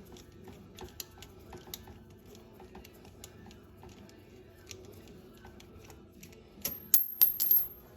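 Light metallic clicks and clinks of a brake cable end being worked into the rear brake arm, with a quick run of louder, ringing metal clinks near the end.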